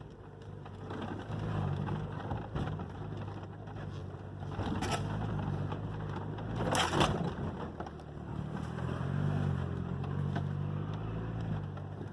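SsangYong Actyon Sports 4WD pickup's engine running at low revs, its pitch rising and falling as it crawls over a rough trail. Two loud knocks stand out about five and seven seconds in.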